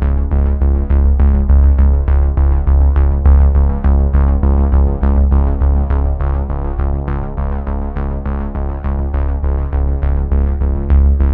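Electronic background music with synthesizer and a steady, fast beat over heavy bass.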